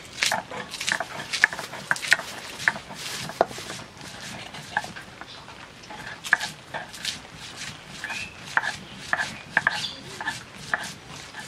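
Stone pestle of a shil-nora grinding stone rocked over green chilies and garlic on the slab, making an irregular stream of short stone-on-stone knocks and gritty scrapes as it crushes them into a paste.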